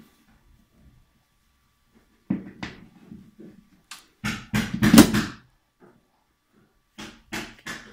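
Clicks, knocks and scraping from a round metal recessed spotlight fitting being handled and pushed up into its hole in the ceiling. The knocks begin about two seconds in, the densest, loudest scraping comes around the middle, and a few more knocks come near the end.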